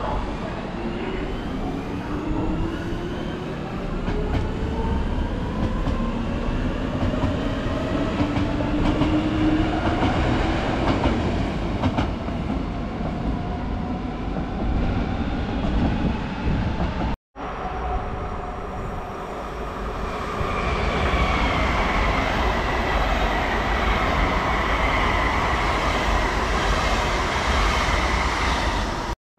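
Trains at a station. First a train pulls away with a whine of several tones rising in pitch as it speeds up, over rumbling and clacking wheels. After a sudden cut, another train runs with a high whine that slowly falls.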